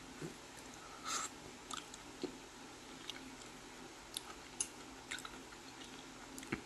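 A person chewing a mouthful of saucy battered ginger chicken: soft, wet mouth clicks and smacks, irregular, roughly every half second, over a faint steady hiss.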